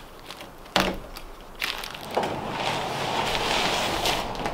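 Knocks from handling material on wooden floor joists, then a steady rustling and crinkling from about two seconds in as fiberglass insulation and its wrapping are handled.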